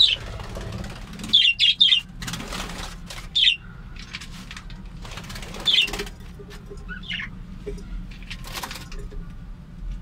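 Budgerigars flapping their wings in short flights, with several short, sharp chirps. The flapping comes in bursts early on and again near the end.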